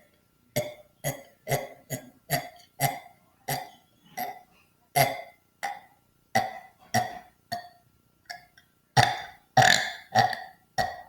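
A boy burping on command: about twenty short, deliberate burps in quick succession, roughly two a second, with the loudest ones near the end.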